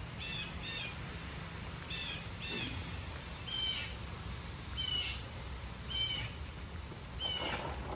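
A bird calling repeatedly: about eight short, high calls, the first four in two quick pairs, then single calls every second or so.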